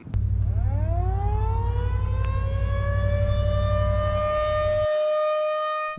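Outdoor tornado warning siren winding up: its wail starts suddenly, rises in pitch over about three seconds, then holds a steady tone, signalling a tornado warning. A loud low rumble runs under it and stops just before the end.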